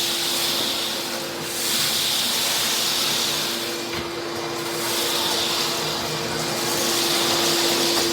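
Shop vac running steadily with a constant hum, sucking up shattered shower-door glass; its hiss swells and fades every couple of seconds as the nozzle moves.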